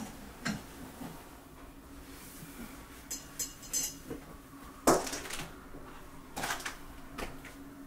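Scattered metallic clinks and knocks from metal curtain fittings on a curtain rod as curtains are handled, with the loudest knock about five seconds in.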